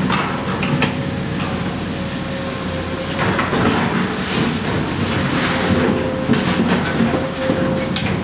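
Komatsu demolition excavator working in concrete rubble: its diesel engine runs steadily under load, with a steady whine alongside. Repeated crunches and clanks come as the attachment breaks and drags debris.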